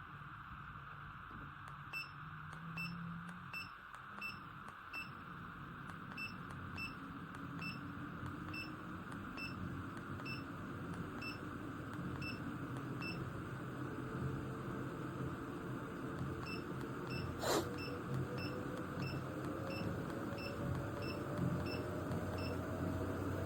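Walking pad treadmill running: a motor hum with a faint whine that rises slowly in pitch as the belt speeds up, and a regular light ticking at about two to three a second that quickens a little. A single sharp click comes about two-thirds of the way through.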